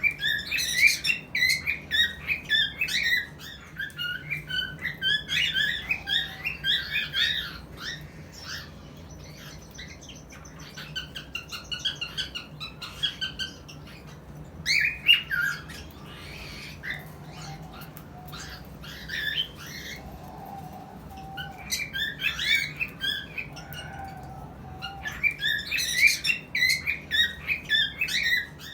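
Cockatiels chirping and squawking in rapid, high-pitched bouts of a few seconds each, with quieter gaps between them.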